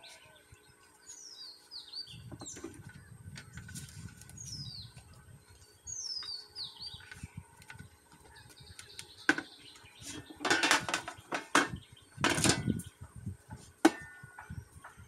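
Birds chirping in short falling notes several times in the first half. From about nine seconds in, the metal weighing pan of an electronic scale is lifted off and handled against the scale's plastic body: two loud scraping rattles and a few sharp knocks.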